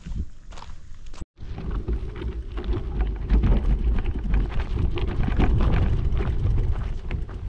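Heavy wind buffeting the microphone in a low rumble, with dense crackling and crunching over it. The sound cuts out completely for an instant about a second in, then comes back louder and stays strong through most of the rest.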